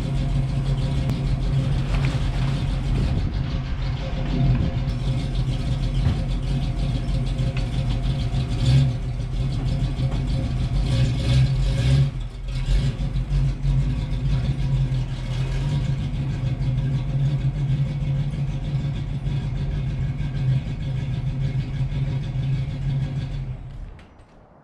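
A 1965 Ford Mustang fastback's engine running steadily in cold weather after sitting for three months; it stops near the end.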